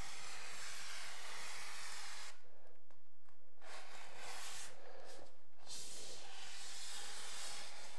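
Steady, even hiss of room tone, with no distinct knocks, taps or strokes.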